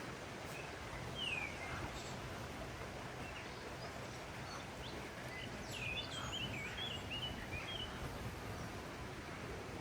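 Small birds chirping, with a longer warbling song phrase about six seconds in, over a steady outdoor background hiss.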